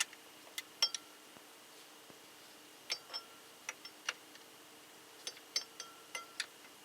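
Sharp metallic clicks and clinks of a box-end wrench on a bolt head, coming in small irregular groups as the wrench is repositioned and the bolt is worked tight; a few clinks ring briefly.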